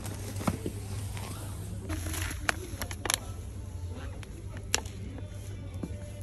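Grocery packaging handled over a wire shopping trolley: a handful of sharp clicks and crinkles against a steady low hum of supermarket background.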